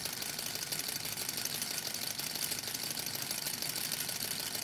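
Small Stirling engine with a brass cylinder and graphite piston, heated by an alcohol burner, running at a steady speed with a fast, light mechanical ticking.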